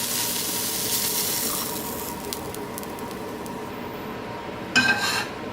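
Mushrooms with garlic and tamari soy sauce sizzling in an oil pan on high heat. The hiss is loudest at first and fades over the first few seconds, over the steady hum of a range hood fan, with a brief louder noise near the end.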